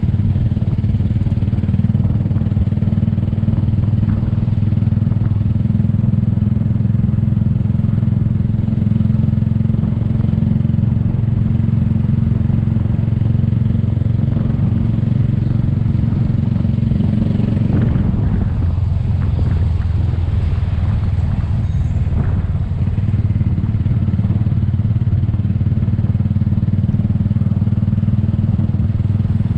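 The riders' own small motorcycle engine running steadily at cruising speed; about two-thirds of the way through its note drops lower as it eases off.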